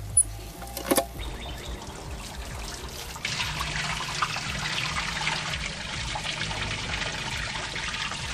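Garden hose spray nozzle spraying water into a large metal smoker to fill its water chamber: a steady hiss of spray on metal that gets much louder about three seconds in and cuts off abruptly near the end. Two sharp knocks in the first second.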